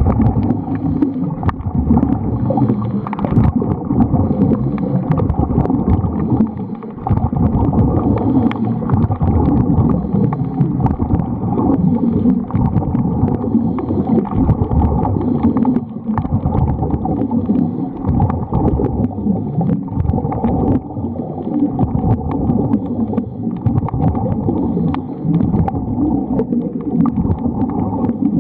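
Underwater sound picked up by a camera in its waterproof housing: a loud, muffled rumble and gurgle with many faint clicks scattered through it, dipping briefly twice.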